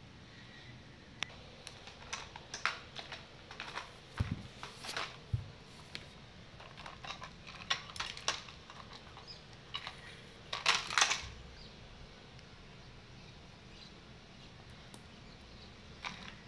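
Irregular clicks, taps and scrapes from a cocker spaniel puppy playing with plastic toys and cardboard on a tile floor, coming in clusters with the loudest about eleven seconds in.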